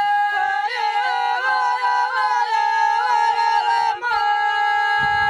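Women's voices singing ojkavica, an unaccompanied traditional folk song, in close-voiced long held notes with small wavering turns in pitch. About four seconds in the voices break briefly and come in again on a new long held note.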